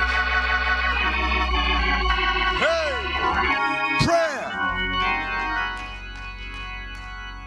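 Church organ playing sustained chords under the sermon, with a deep bass line that drops out about halfway through, after which the chords carry on softer.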